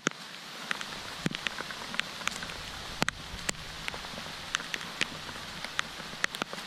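Steady rain falling, with frequent sharp ticks of single raindrops striking the camera close to the microphone.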